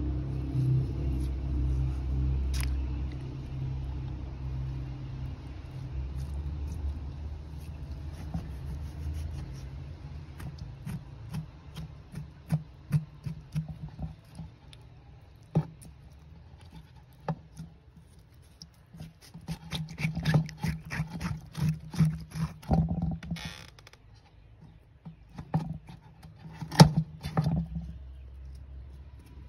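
Knife blade scraping the gel off an aloe vera leaf: quick scrapes and clicks that come thicker and faster in the second half. A low steady rumble fills the first third.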